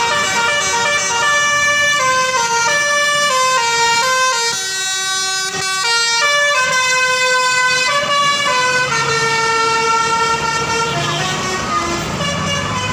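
Bus 'telolet' horn, a multi-tone air horn, playing a tune of quick stepped notes, with one longer held note about two-thirds of the way through.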